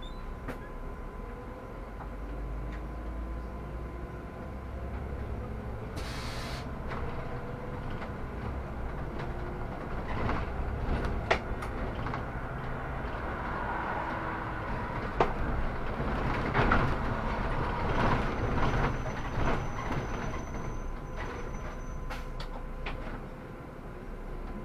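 Solaris Urbino 18 articulated city bus under way, heard from inside: a steady low rumble from the engine and drivetrain, whose pitch rises and falls with speed. There is a short hiss of air about six seconds in, and scattered knocks and rattles.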